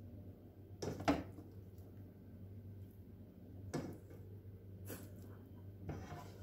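A handful of short clinks and knocks of a kitchen utensil against a ceramic serving plate and frying pan, the loudest about a second in, over a steady low hum.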